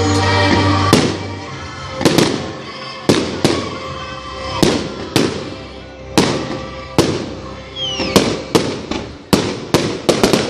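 Aerial fireworks bursting in a rapid, irregular series of sharp bangs, one to three a second, with a brief falling whistle about three-quarters of the way through. Music plays under the first second or so.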